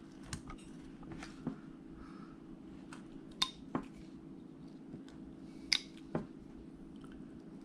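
Small carving tool cutting into wood: a scatter of short, sharp clicks as the blade bites and snaps out chips, the strongest two pairs about three and a half and six seconds in, over a faint steady room hum.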